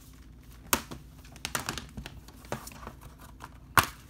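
A folded paper card rustling as it is handled with a plastic Blu-ray case. There are two sharp clicks, one under a second in and a louder one near the end.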